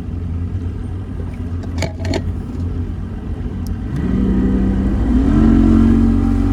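Boat motor running at low speed, then throttled up about four seconds in: its pitch rises in two steps and it gets louder as the boat gets under way.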